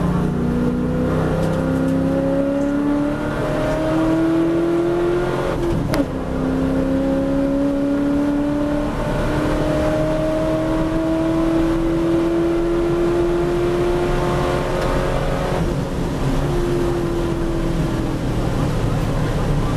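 V8 race car engine heard from inside the cockpit, pulling hard, its pitch climbing steadily through the gears. About six seconds in, a sharp crack comes with a drop in pitch at an upshift. Near the end the driver lifts off and the pitch falls as the car slows.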